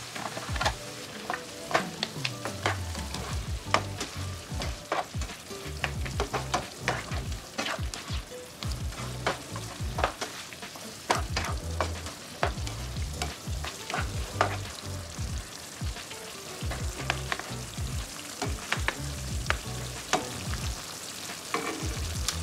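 Chicken strips sizzling in a nonstick frying pan with a little garlic-and-bouillon liquid, stirred and turned with a plastic utensil that clicks and scrapes against the pan many times.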